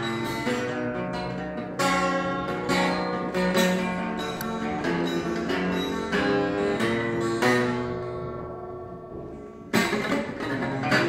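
12-string acoustic guitar being played: chords are strummed and picked, ringing with many bright overtones. About two-thirds through, a chord is left to ring and fade away, then strong strumming starts again near the end.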